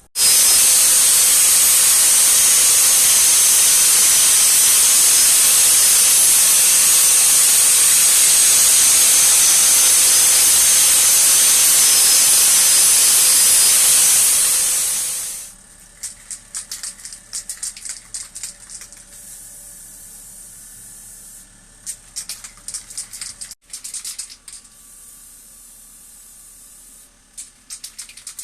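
Loud, steady hiss of a compressed-air jet for about fifteen seconds, cutting off abruptly; after that, quieter short spells of hissing and scattered light ticks.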